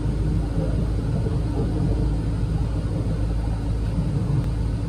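Steady low rumble of a moving Melbourne tram, heard from inside the passenger cabin.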